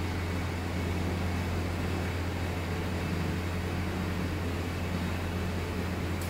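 Steady low machine hum under a light hiss.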